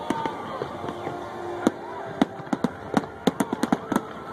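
Fireworks display bursting over the sea: sharp bangs and crackling reports, few for the first second and a half and then coming thick and fast.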